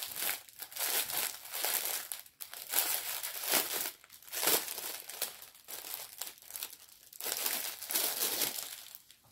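Small plastic bags of round diamond-painting drills crinkling as they are handled and sorted, in irregular bursts.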